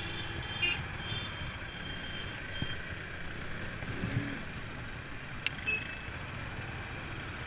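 Motorcycle riding through busy street traffic: steady engine and road noise, with a few short high-pitched beeping tones in the first few seconds and a couple of brief clicks.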